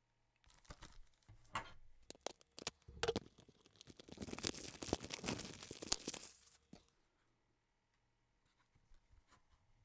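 Plastic shrink wrap being torn and peeled off a Blu-ray case, with a run of crackling about four to six and a half seconds in, after scattered clicks of the case being handled.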